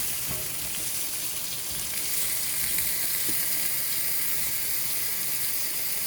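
Thick-sliced beets pan-frying over medium-high heat, a steady sizzle.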